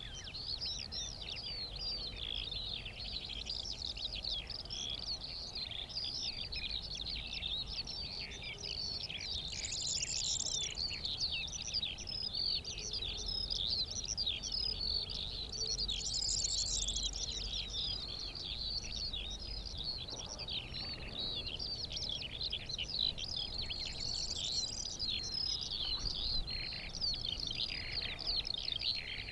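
Eurasian skylarks singing: a continuous, rapid, unbroken warbling with no pauses, with brief higher trills now and then.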